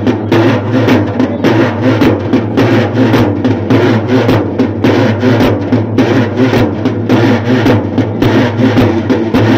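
Loud, fast rhythmic drumming, several strokes a second, over a steady low hum.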